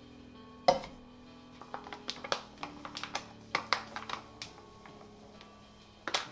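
A series of sharp, irregular taps and clicks over quiet background music: one loud tap about a second in, a quick run of lighter taps for the next few seconds, and another burst of taps near the end.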